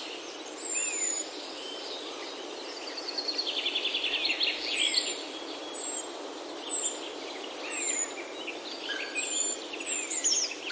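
Several songbirds singing in woodland: thin, high whistles that slide downward, repeated about once a second, mixed with quick trilling phrases, over a steady background hiss.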